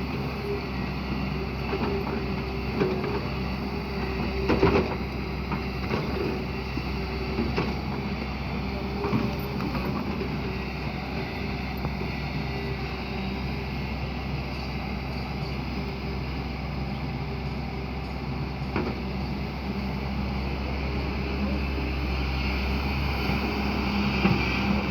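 Hyundai excavator's diesel engine running steadily under work, with a few short knocks.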